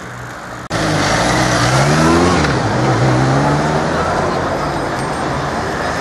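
Street traffic noise: after an abrupt jump in level about 0.7 s in, a motor vehicle's engine rises in pitch and then falls away over a steady wash of road noise, with some voices mixed in.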